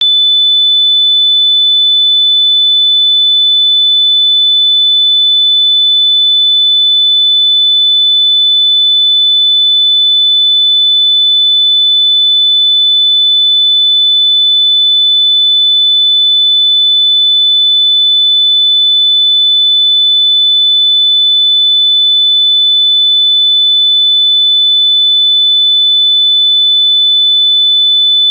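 A single electronically generated sine tone, very high-pitched, held loud and perfectly steady without any change.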